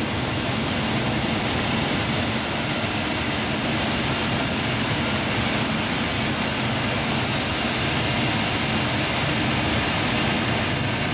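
SAD aerodynamic grain separator running steadily while calibrating wheat: a constant whir of its fan and electric motor, with the hiss of grain pouring down its chutes into the bags.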